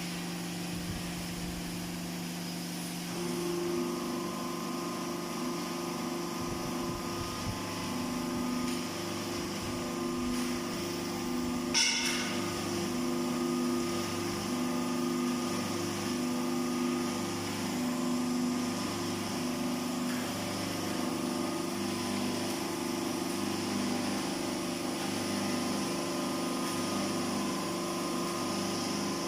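Motorcycle wheel rim butt welding machine running: a steady mechanical hum with a slow regular pulse that steps up in strength about three seconds in. One short, sharp burst sounds about twelve seconds in.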